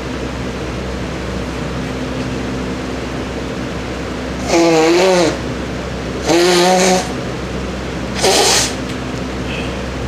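A woman congested with a cold blowing her nose into a cloth three times, about half a second to a second each, the first two with a honking pitch in them, over a steady background hum.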